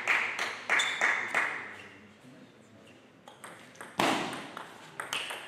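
Table tennis rally: the plastic ball pings off bats and table in quick succession, about three hits a second. A single louder, ringing hit comes about four seconds in, followed by a few lighter ticks near the end.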